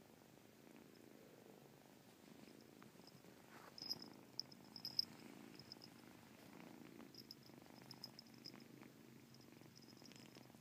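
A kitten purring steadily and softly, with a few faint high ticks and clicks over it, loudest about four to five seconds in.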